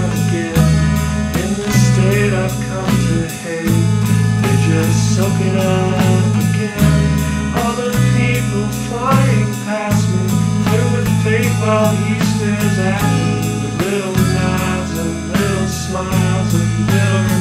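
Alternative rock song with a sung vocal, guitar and bass over a steady beat.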